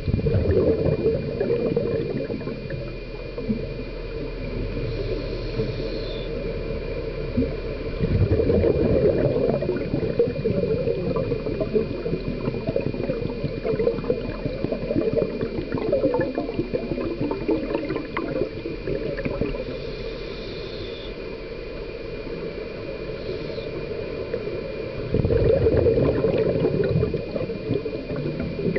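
Scuba diver's regulator heard underwater: exhaled bubbles gurgling in loud swells at the start, about 8 seconds in and about 25 seconds in, with quieter bubbling between, over a faint steady hum.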